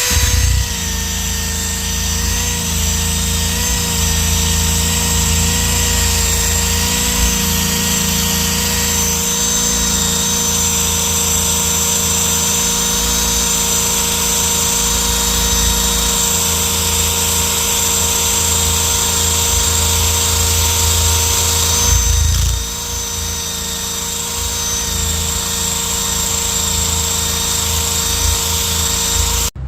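Drill spinning a 3M stripe-off eraser wheel against a boat hull, grinding off old emblem letters and their glue: a steady motor whine under load, a little quieter for roughly the last third.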